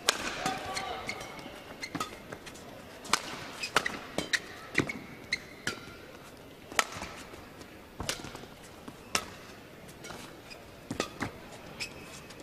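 Badminton rally: sharp racket strikes on the shuttlecock at irregular intervals of about a second, with short high squeaks of court shoes on the mat over a low hall murmur.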